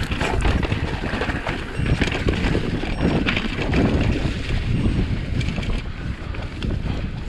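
Scott Spark 950 full-suspension mountain bike riding fast down a dirt and leaf-covered singletrack: knobby tyres rolling over the trail, with many quick clicks and rattles from the bike over bumps. Wind buffets the microphone throughout.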